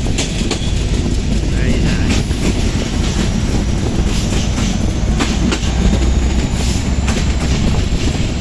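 Passenger train running along the track, a steady loud rumble with the wheels clattering over rail joints.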